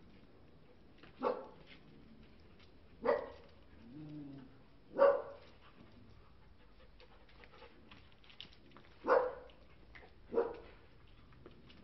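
Dogs play-fighting, with five short, loud single barks at uneven gaps and a softer low growl about four seconds in.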